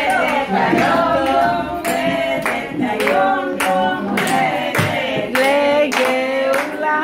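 A group of people singing together, with hands clapping along in a steady rhythm.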